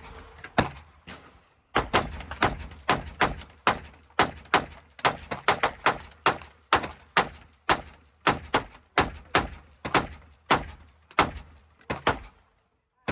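A rapid string of gunshots, about two to three a second for roughly ten seconds, after a couple of single shots at the start.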